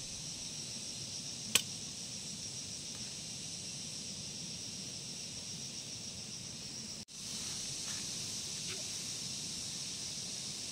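Steady high-pitched chorus of insects, with one sharp click about a second and a half in. The sound drops out for an instant about seven seconds in, then the insect chorus carries on.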